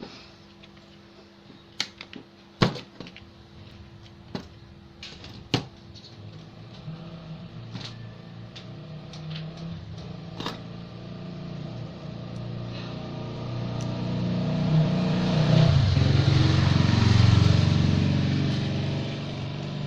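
A few sharp clicks, then a passing motor vehicle whose engine sound builds slowly over several seconds, is loudest a few seconds before the end, and begins to fade.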